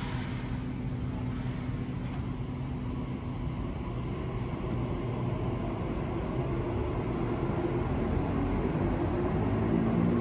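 Sydney Trains Waratah A-set electric train pulling out of the platform: a steady low hum of motors and wheels with a few steady low tones, growing somewhat louder toward the end.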